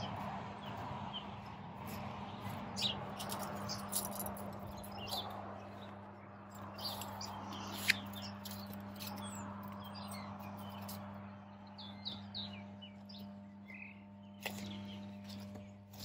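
Small birds chirping sporadically in short, high calls over a faint steady low hum, with a single sharp click about eight seconds in.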